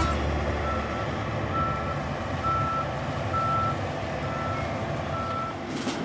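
Toy forage harvester's electronic sound module playing a truck-style engine rumble with a reversing beep repeating a little under once a second.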